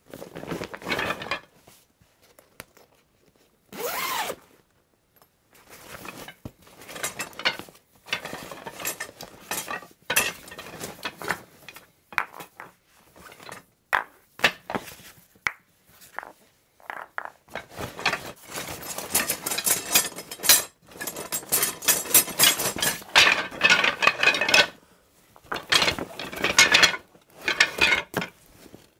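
Hands rummaging through a croquet bag: the gear inside knocks and clatters against itself and the bag rustles. It comes in irregular bursts with short pauses, busiest in the second half.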